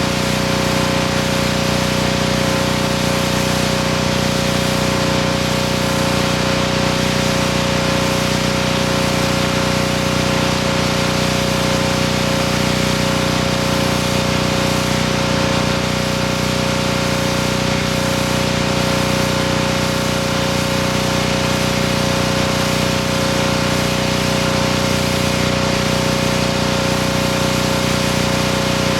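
Pressure washer running steadily, its motor and pump humming at a constant pitch, with the hiss of the high-pressure water spray blasting moss off concrete roof tiles.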